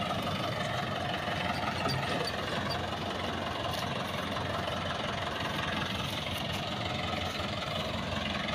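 Tractor diesel engine running steadily while it drives a rear-mounted rotavator over grassy ground.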